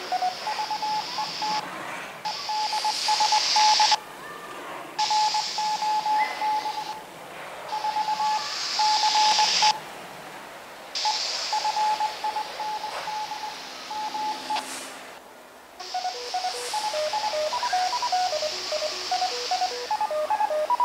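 Handheld ham radio speaker playing a foxhunt beacon received through an offset attenuator: beeping tones, at first a short stepping tune, then a single tone keyed on and off, over radio hiss. The audio cuts out abruptly several times as the weakened signal sits right at the edge of the squelch.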